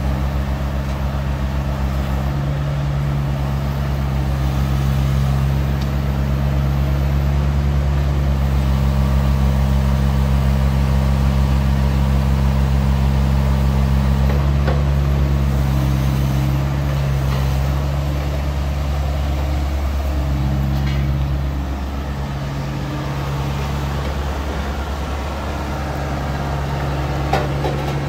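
Kubota U48-4 mini excavator's diesel engine running steadily, its low hum changing note now and then as the arm and bucket are worked. A sharp tap near the end.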